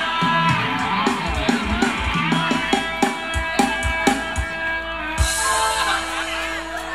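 Live band playing Thai ramwong dance music with regular drum strokes. About five seconds in, the drumming stops and the band holds a long final chord that fades out.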